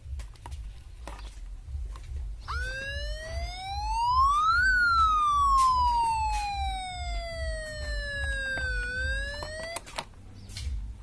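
Big horn sounding through a siren cut-out unit: a few clicks, then one siren wail that rises quickly, falls slowly, starts to climb again and cuts off suddenly with a click. A low hum runs underneath.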